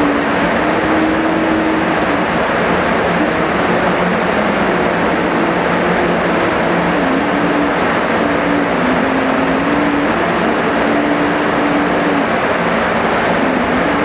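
Heavy rain falling in a steady, dense hiss, with a faint low tone underneath that drifts up and down in pitch in slow steps.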